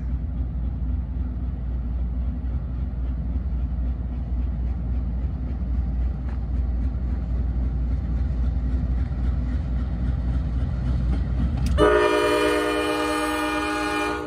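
Low, steady rumble of a passing train. About twelve seconds in, a locomotive's air horn sounds a loud chord of several notes and holds it.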